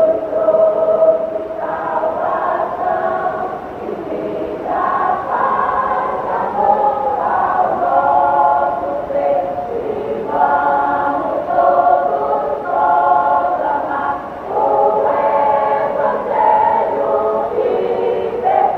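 Church choir of mixed women's and men's voices singing a hymn in Portuguese, steady and loud with no accompaniment clearly standing out.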